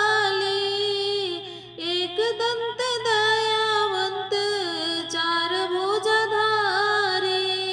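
A high solo voice singing a verse of a Hindi Ganesh bhajan in long held notes that bend and waver, with short breaks between phrases.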